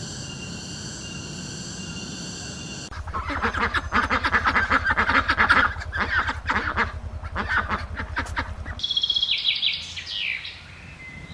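A flock of birds calling in rapid, repeated calls, which begin suddenly about three seconds in and stop nearly nine seconds in. A short, high call falling in pitch follows. Before the calls there is a steady background hum.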